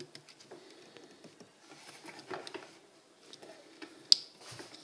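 Light scattered clicks and taps of a plastic loom hook against the clear plastic pegs of a Rainbow Loom as rubber bands are hooked and pulled over, with one sharper click about four seconds in.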